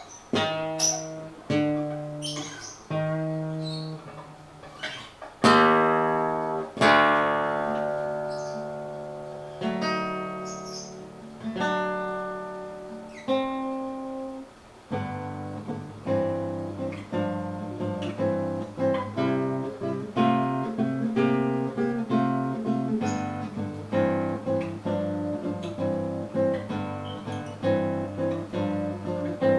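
Acoustic guitar playing: slow, separate plucked notes and ringing chords, then about halfway through a busier strummed accompaniment with steady bass notes.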